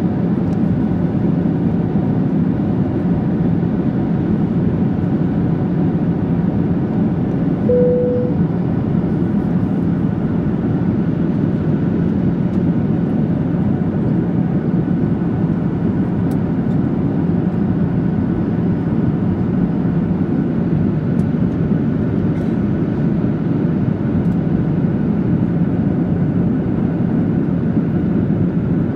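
Steady cabin noise of a Boeing 737-800 in flight: the even rush of air over the fuselage and the drone of its CFM56 turbofan engines, with a low steady hum underneath. A short single tone sounds about eight seconds in.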